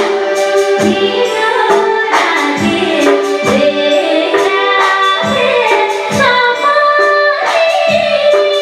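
A woman singing a slow Nepali song over instrumental accompaniment, with a drum stroke about once a second.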